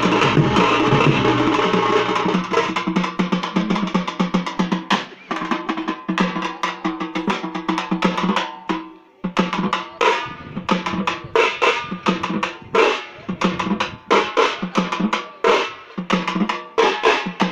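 A village band drumming fast on large double-headed barrel drums, with a steady pitched ring under the strokes. The drumming drops away briefly about nine seconds in, then starts up again.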